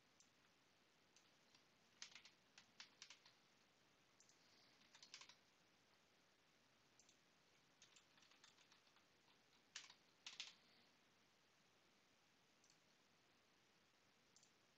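Faint typing on a computer keyboard in a few short runs of keystrokes, with a single click near the end.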